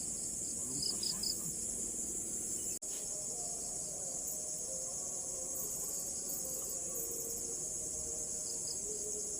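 Steady high-pitched chorus of insects, such as crickets, drops out for an instant about three seconds in.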